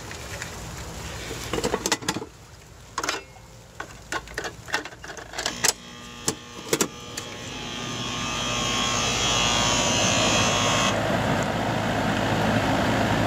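Goodman condensing unit being switched on: a few clicks and knocks, then the condenser fan spins up to a steady rush of air. The compressor is not starting even with the new run capacitor in.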